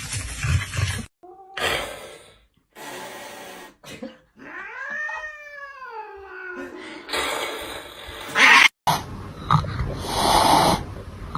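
A cat's long, drawn-out meow that rises and then falls in pitch, in the middle of the stretch. Short clips of noisy room sound cut in and out abruptly around it, with a loud burst of noise just before the ninth second.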